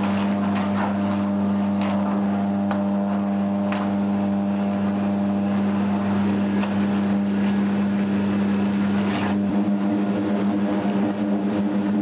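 Electric arc of a steel-mill ladle furnace running: a steady electrical hum with irregular crackles and pops from the arc. The deepest part of the hum drops away about nine seconds in.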